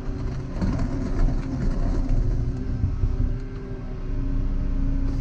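Volvo EC140EL tracked excavator's diesel engine running steadily under load, with scattered knocks and crackles for the first few seconds as the machine works.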